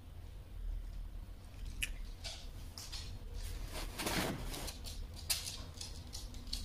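Shiba Inu's claws clicking and ticking on the wooden floor as it walks about, in scattered short taps, with a louder, brief rustling noise about four seconds in.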